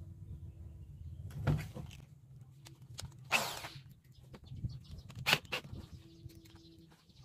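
Handling noise from fitting a bit into a corded power drill's chuck: a few sharp clicks and knocks of metal and plastic, with a short rasp about halfway through, over a low hum.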